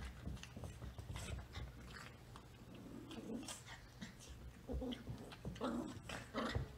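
Two Rat Terrier puppies play-fighting: short growls and whimpers, mostly in the second half, over scuffling on bedding.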